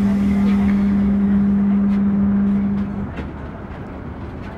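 Belgian coast tram running, heard from inside the car: a steady hum over a low rumble. About three seconds in the hum cuts off and the sound drops to a quieter rumble with a few scattered clicks.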